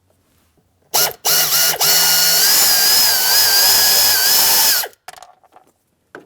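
Cordless drill-driver running a Phillips bit to back out panel mounting screws: a short trigger pull about a second in, then a steady motor whine that steps up in pitch and runs for about three seconds before cutting off. A few light clicks follow near the end.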